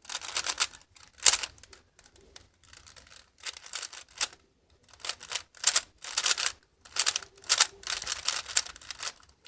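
Rubik's cube being turned by hand: the plastic layers clack in quick runs of turns, with short pauses between runs.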